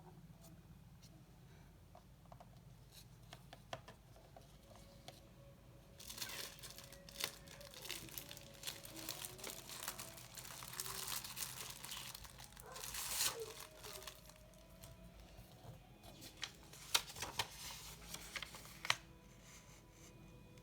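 A sheet of origami paper being handled and folded, rustling and crinkling. It starts about six seconds in, and a few sharp creasing snaps come near the end.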